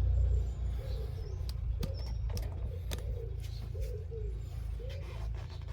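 A pigeon cooing in a run of short rising-and-falling notes, over a steady low rumble, with a few faint clicks.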